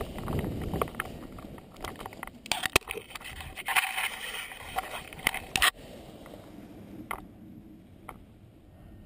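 Wind buffeting the camera microphone as a paraglider comes in to land on a grass slope. About two and a half seconds in, loud rustling and scraping with sharp clicks as the pilot touches down among the lines and harness. This stops about three seconds later, leaving a few faint clicks.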